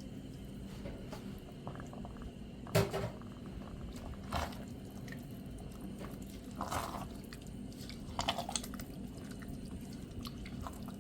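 Chicken broth being poured into a pan of ground beef and vegetables and stirred in, with a few short knocks against the pan over a steady low hum.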